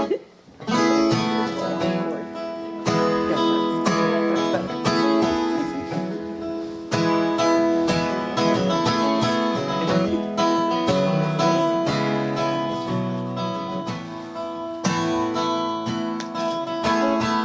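Acoustic guitar strummed with a fiddle playing along, the instrumental intro of a folk song before the singing begins. After a brief break at the start, the music comes in about half a second in.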